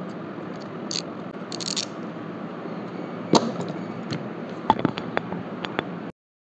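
Handling of a metal snap-off utility knife: a short scraping rustle and clicks from the knife, then one sharp clack as it is set down on the desk about halfway through, followed by a few lighter clicks and taps. A steady background hum runs underneath, and everything cuts off abruptly near the end.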